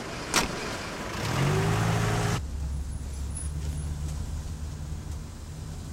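A taxi's door slams shut about half a second in, then its engine revs up as the cab pulls away. About two and a half seconds in the sound changes abruptly to a steady low engine drone heard inside the cab.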